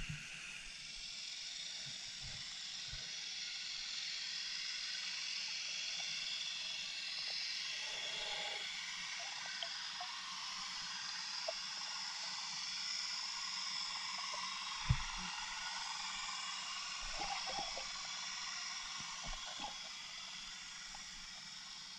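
Underwater ambience picked up by a GoPro in its waterproof housing: a steady hiss with scattered faint clicks and a single sharp knock about fifteen seconds in.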